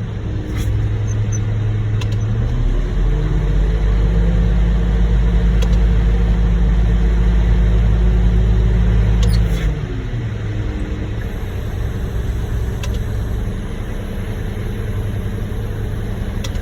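Concrete mixer truck's diesel engine running. About three seconds in it revs up, holds high for several seconds, then drops back to a lower idle, as the truck loads concrete into a skid steer bucket.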